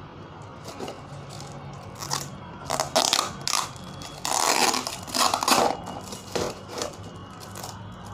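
Packing tape being peeled and a cardboard box torn open by hand: irregular crackling, tearing bursts, loudest about three seconds in and again in the middle.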